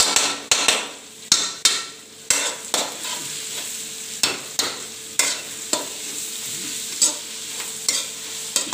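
Long steel spoon stirring sliced onions in a steel kadai, scraping and knocking against the pan at irregular intervals, over steady sizzling as the onions fry until soft.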